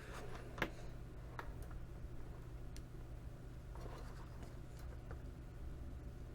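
A few light, scattered clicks and taps from handling small metal and plastic parts of a disassembled pump and reservoir block, the clearest about half a second in, over a faint steady low hum.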